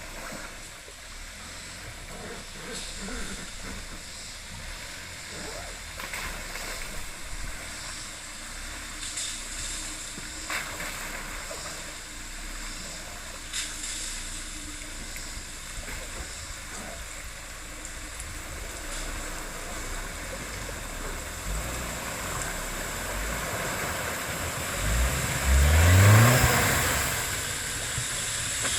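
Off-road vehicle's engine working along a rough trail, mostly low with scattered knocks, then revving up near the end, its pitch rising.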